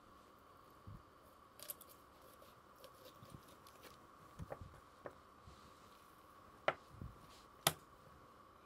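Scattered soft taps, clicks and wet handling sounds of a knife and raw chicken pieces on a wooden butcher-block board as a whole chicken is cut up, with two sharper knocks near the end. A faint steady hum runs underneath.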